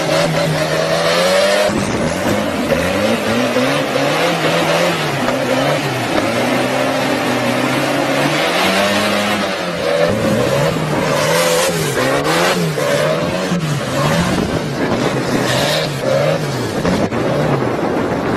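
Farm tractor engine revving hard, its pitch rising and falling over and over, over a broad rushing hiss from the rear tyres spinning on asphalt in a burnout.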